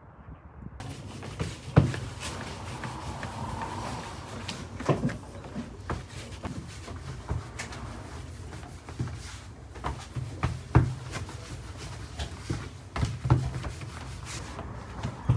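Wooden rolling pin rolling out samsa dough on a metal-topped table: irregular knocks and clatters with rubbing strokes, over a low steady hum.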